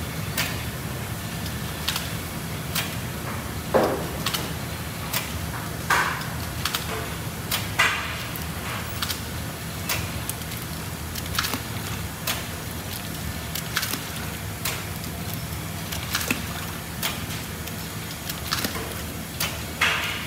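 Tofu tray-sealing machine running with a steady low hum. It gives sharp clacks and knocks at irregular intervals, roughly one to two a second, as it seals film lids onto tofu trays.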